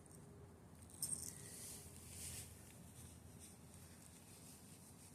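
Near silence, with faint rustling and a soft click about a second in.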